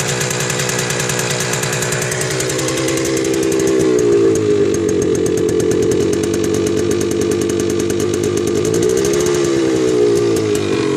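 1979 Yamaha DT250's single-cylinder two-stroke engine running, its revs rising a few seconds in, holding, then dipping briefly and picking back up near the end. The owner reports ugly noises and a loss of power, and asks whether it is engine knock.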